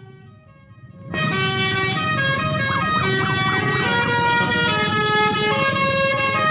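Bus 'telolet' horn, a set of musical air horns playing several notes at once. It starts faint and comes in loud about a second in, holding chords that shift to new notes a few times.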